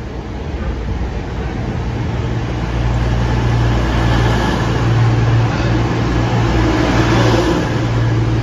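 Coupled Class 220 Voyager and Class 221 Super Voyager diesel multiple units drawing into the platform, the steady low hum of their underfloor Cummins diesel engines and the rush of the passing cars growing louder over the first three seconds, then holding as the cars pass close by.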